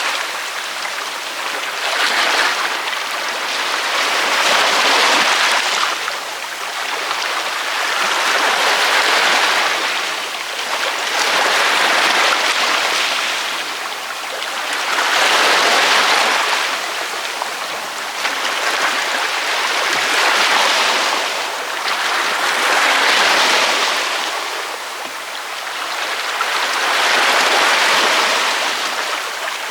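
Ocean surf breaking on a beach, a hissing wash of water that swells and falls back every three to four seconds.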